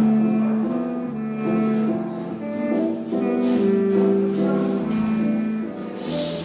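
Background music with a guitar.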